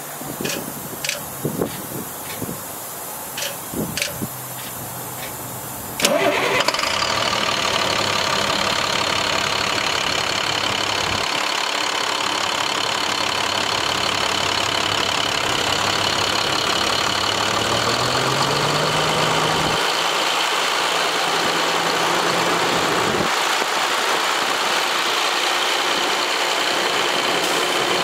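International MaxxForce DT inline-six diesel engine starting about six seconds in, after a few clicks, then running steadily at idle. Around two-thirds of the way through its speed rises smoothly and holds at a higher, steady pitch.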